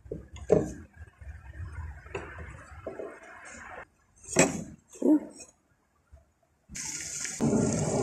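Close handling noise of fingers rubbing and pressing a mirror glass into a plastic side-mirror housing, with soft rustles and a few short bumps. A steady hiss comes in near the end.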